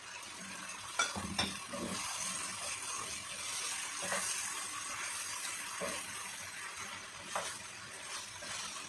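Chicken sizzling in a hot enamel pan while a wooden spoon stirs it, with a few knocks about a second in as cubed potato is tipped in from a plate, then lighter scrapes and taps of the spoon against the pan.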